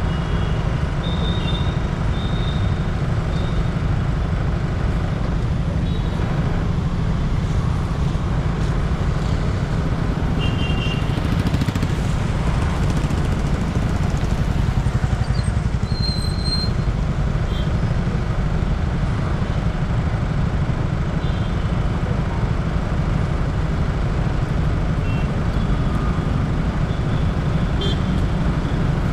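City road traffic: a steady low rumble of engines and tyres, with short high horn toots several times, in the first few seconds, about ten and sixteen seconds in, and near the end.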